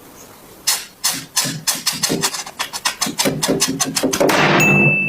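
Red adhesive tape pulled off its roll in a series of sharp crackling clicks that come faster and faster, ending in a longer, loud rip.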